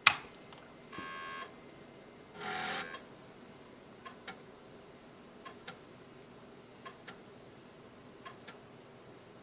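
Commodore 1581 3.5-inch floppy drive (a newly built replica) working through a disk copy. A sharp click comes first, then a short buzz and a brief rasp as the head seeks, then soft pairs of ticks about every second and a half as the head steps from track to track. The rhythm is that of a drive reading and writing normally.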